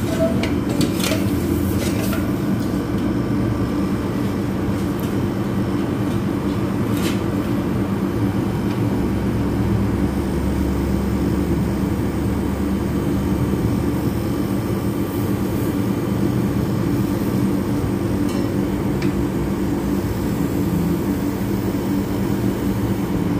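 Outdoor unit of a 3/4 PK Panasonic split air conditioner running steadily, a compressor and fan hum, while it is being charged with refrigerant because it is low on freon. A few light clicks come in the first couple of seconds and once more about seven seconds in.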